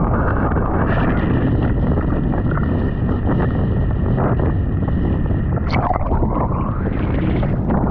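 Strong wind buffeting the microphone in a steady low rumble, with sea noise under it. A faint steady high tone sits beneath for most of it, and a brief high sound comes near the end.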